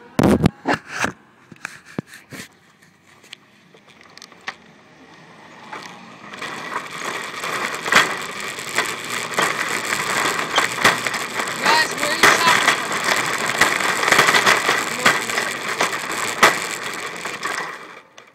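Shopping cart rolling fast over a concrete sidewalk, its wheels and frame rattling loudly for about twelve seconds and then stopping abruptly; a few sharp knocks sound near the start before it gets going.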